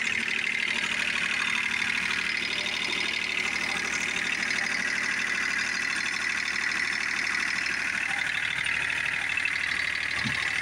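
John Deere F-935 mower's three-cylinder diesel engine running steadily just after an oil change, with fresh oil circulating and oil pressure up.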